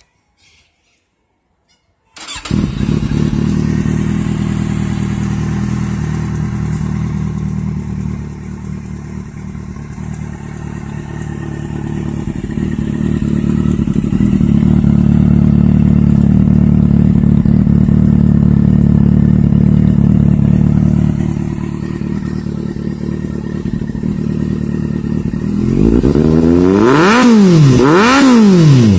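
Kawasaki Z800's inline-four engine starting up about two seconds in and idling steadily, then revved in a few quick throttle blips near the end, the revs rising and falling sharply.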